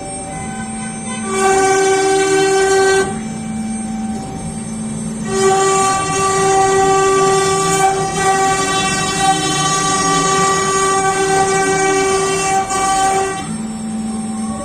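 CNC router running: a steady mechanical whine with many overtones that shifts between a higher and a lower pitch a few times as the machine works.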